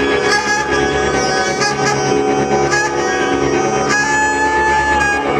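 Loud improvised noise music: saxophones holding long notes over a dense drone from a prepared guitar, with short bright high squeals cutting in several times.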